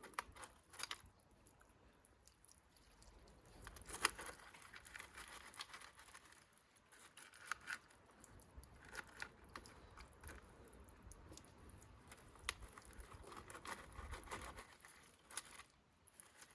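Faint, scattered crunching and rustling as gravel and a potted ornamental grass are handled during planting, with a sharper click about four seconds in.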